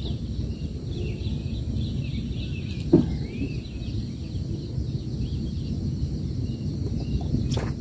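Wind rumbling on the microphone, with faint bird chirps in the background. A single sharp knock about three seconds in, and another near the end.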